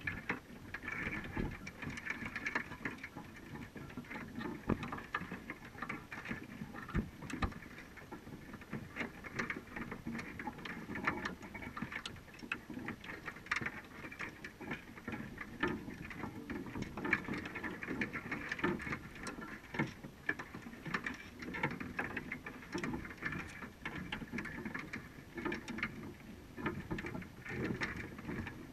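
Underwater sound heard through a GoPro's waterproof housing on a crab trap: dense, irregular clicking and ticking from crabs clambering over the trap's wire mesh and bait cage, over a muffled low rumble of water.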